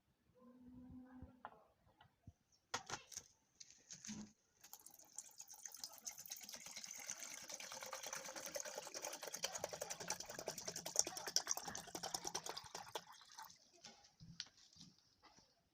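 A liquid sound: a dense, crackly trickle of many small clicks that starts about four and a half seconds in and lasts about nine seconds. It is preceded by a few short knocks.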